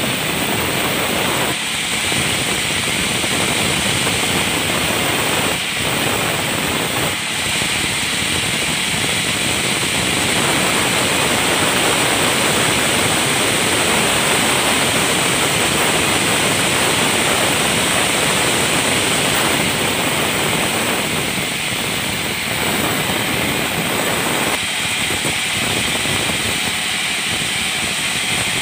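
Industrial vertical band saw running and ripping a balsa wood plank: a loud, steady rushing noise of motor and blade in the wood, with a few brief dips.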